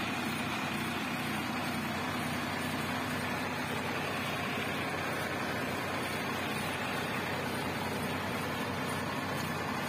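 A farm tractor's diesel engine running steadily at road speed, heard from the driver's seat with its road noise.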